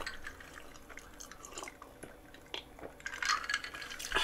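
Close-up mouth sounds of eating and drinking: small wet clicks of chewing and sips from a glass of iced drink, with a louder gulp about three seconds in and a sharp knock near the end as the glass is set down.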